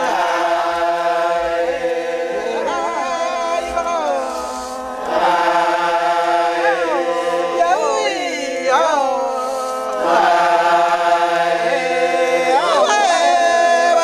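A group of men chanting together in long held notes, broken several times by voices sliding sharply up and down in whooping calls.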